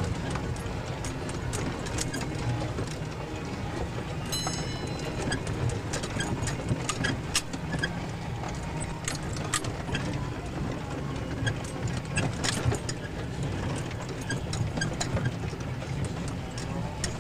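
Jeep engine running at low speed, heard inside the cabin, with the body and loose gear clicking and knocking as it crawls over a rough, rocky trail. A brief high squeak comes about four seconds in.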